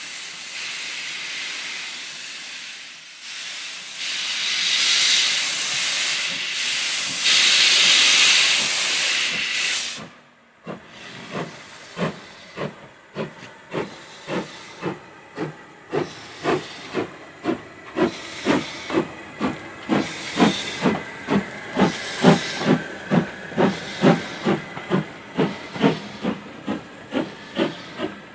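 Ivatt 2MT tank steam locomotive hissing loudly with escaping steam, which stops abruptly about ten seconds in. It then starts away with a train, its exhaust beats slow at first and quickening steadily as it gathers speed.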